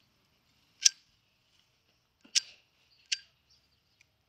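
Flint wheel of a flip-top windproof lighter struck three times, each a short, sharp rasp, with a faint click near the end. It throws sparks but does not light, being low on fluid.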